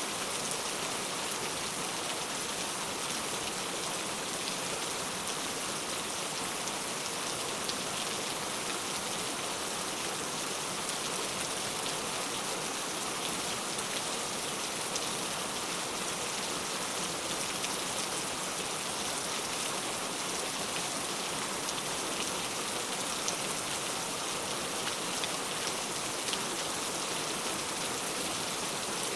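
Steady rain falling, an even hiss with many small drop patters.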